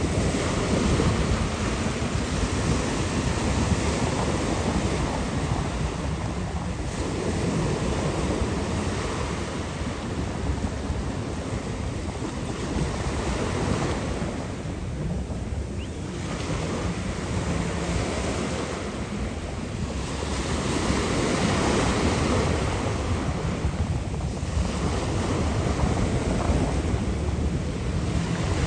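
Steady wind buffeting the microphone over rushing sea water, swelling and easing every few seconds.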